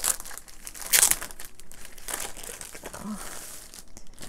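Clear plastic wrapping crinkling as it is pulled open and off a rolled canvas, in irregular crackles, the loudest about a second in.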